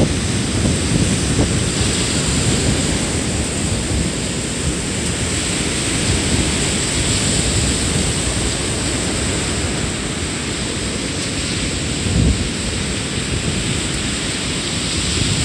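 Wind buffeting the microphone on an open beach: a constant, uneven low rumble with steady hiss, and one brief louder gust or bump about twelve seconds in.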